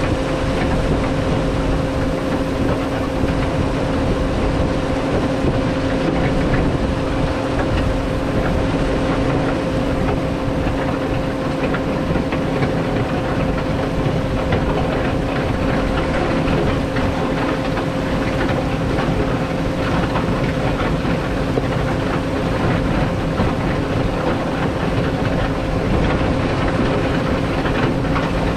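Caterpillar 140 motor grader's diesel engine running steadily under load at a constant pitch, with the moldboard blade scraping and rattling through loose gravel.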